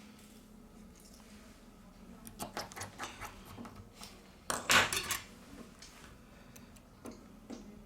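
Small hard parts and tools clicking and tapping during a smartphone reassembly: a few scattered clicks, then a louder quick clatter about halfway through. A faint steady hum runs underneath.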